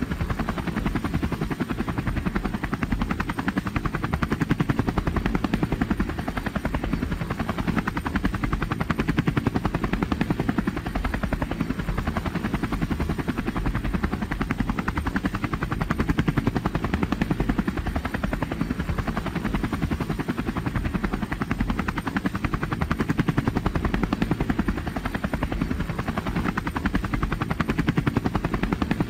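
Robinson R44 Clipper II helicopter running, heard from inside the cabin: the steady, fast beat of its two-bladed main rotor over the drone of its six-cylinder piston engine, unchanged through the approach and touchdown.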